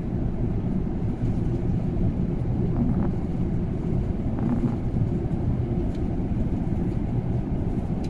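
Steady low rumble of an Airbus A380 airliner in flight, heard from inside the passenger cabin: its four engines and the rush of air past the fuselage.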